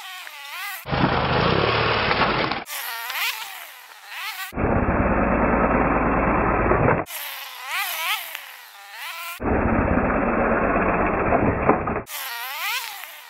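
BMW R100GS Paris-Dakar's air-cooled flat-twin engine revving up and down repeatedly as the motorcycle rides over grass and hops a pallet. The sound switches abruptly several times between a thin, buzzy whine with pitch rising and falling and a fuller, lower engine-and-wind noise.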